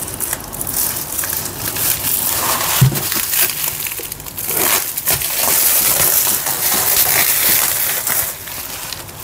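Bubble wrap crinkling and crackling as a utility knife slits it and it is pulled away from a cardboard box, with a dull knock about three seconds in. The crinkling grows louder and denser from about five seconds in.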